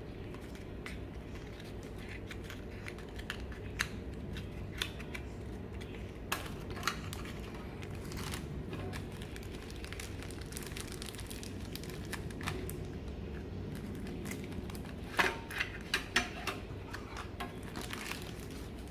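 Scattered small clicks and taps of objects being handled, with a cluster of sharper knocks about fifteen seconds in, over a steady low hum.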